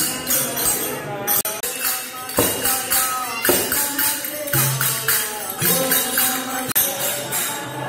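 Devotional bhajan music: a voice singing a melody over a steady jingling beat of small percussion.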